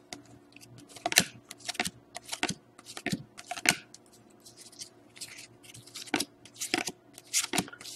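A stack of glossy foil-finish 2012-13 Panini Certified hockey cards being flipped through by hand, the cards sliding and flicking against each other in quick, irregular clicks over a faint steady hum.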